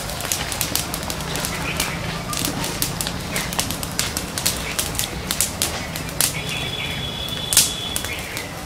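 Small open campfire of sticks crackling, with frequent sharp pops and snaps over the steady rush of the flames. A thin high steady tone runs for about a second, around seven seconds in.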